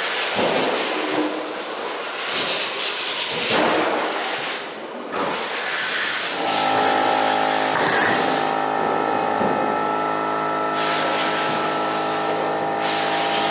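Electric RC stadium trucks racing: surges of motor whine and tyre hiss that swell and fade as the trucks pass. About six seconds in, a steady hum made of several tones starts and holds to the end.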